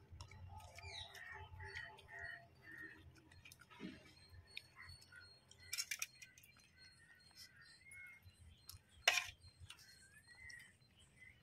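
Birds chirping in short notes, with a falling whistle about a second in. Over them come a couple of sharp metallic clinks, the loudest about nine seconds in, from a steel ladle against a steel pot.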